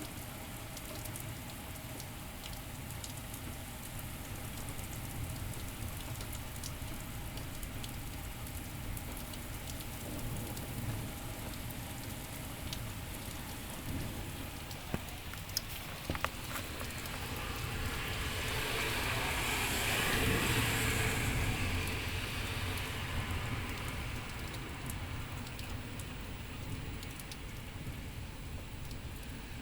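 Rain falling steadily, with a few sharp drop ticks, and a broad hiss that swells and fades about two-thirds of the way through.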